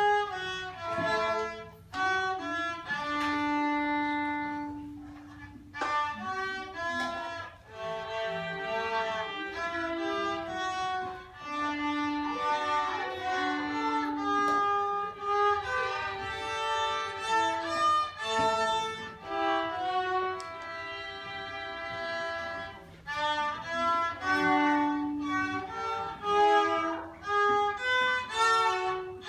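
A child playing solo violin, unaccompanied: a melody of separate bowed notes in short phrases, with a few longer held low notes.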